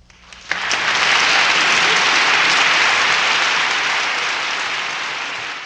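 Audience applauding at the end of a sung number, building up about half a second in, holding steady, then slowly fading near the end.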